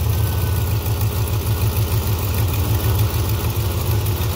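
Turbocharged 5.3-litre LS V8 with a Truck Norris cam idling steadily just after starting, its On3 70 mm turbo spinning. A faint high whine sounds over the idle in the first second.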